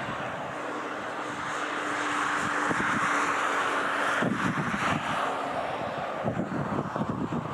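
Boeing 737-800's CFM56 jet engines on final approach, heard from the ground: a steady distant jet whine and rush, with a low fluttering rumble joining about four seconds in.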